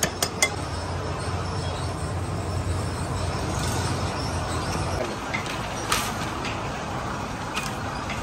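Steady low mechanical rumble in the background, with a few light clinks in the first half-second and another about six seconds in.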